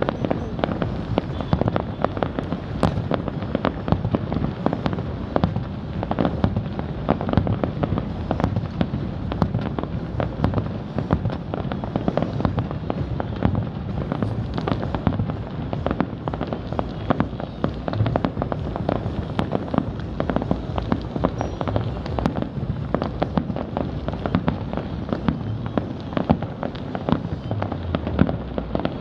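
Fireworks going off in a dense, unbroken barrage of bangs and crackles.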